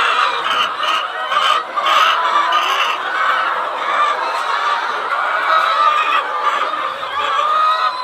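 A flock of chickens clucking, many birds at once in a steady chorus with short higher calls mixed in.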